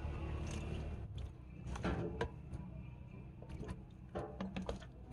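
Scattered light knocks and clicks of objects being handled, over a faint low rumble that fades within the first second.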